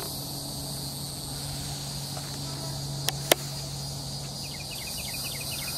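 Evening insect chorus: a steady, high, even buzzing drone, with a low steady hum beneath it. Two sharp clicks come close together a little after three seconds in.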